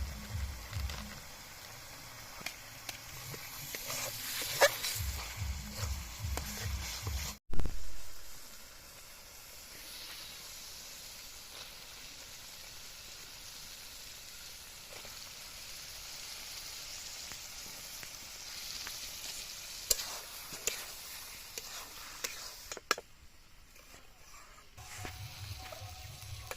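Chicken paya curry sizzling as it fries in masala in a pan, with stirring. A sharp knock about a quarter of the way in is the loudest sound.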